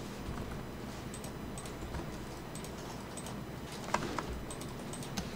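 Scattered, irregular clicks of a computer mouse and keyboard as a 3D mesh is edited, with a faint low hum underneath.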